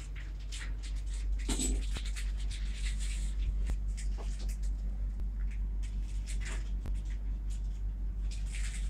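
Scattered brief rustles and scrapes over a steady low hum, with one slightly stronger rustle about a second and a half in.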